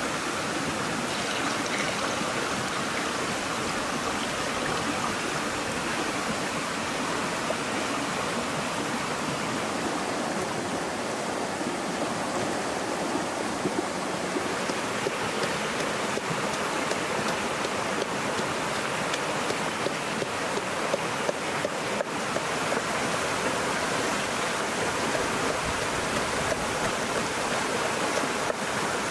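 Shallow rocky stream running with a steady rush of water, and a few faint clicks later on and near the end.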